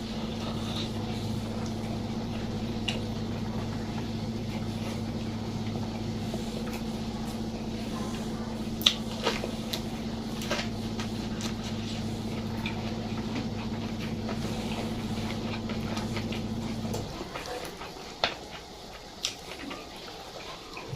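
Close-up eating sounds: scattered clicks, crunches and smacks of chewing and handling food. Under them runs a steady low hum that cuts off suddenly about four-fifths of the way through.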